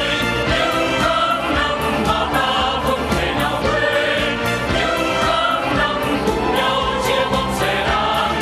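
A mixed group of men and women singing together into microphones over amplified backing music with a steady beat.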